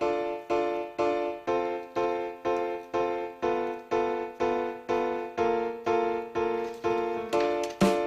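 Background music: keyboard chords struck evenly about twice a second.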